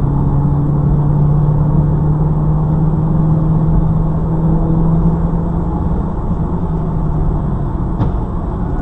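Engine drone and tyre noise inside a car's cabin as it cruises at a steady speed: a low, even hum with road rumble beneath it. A single short click comes about eight seconds in.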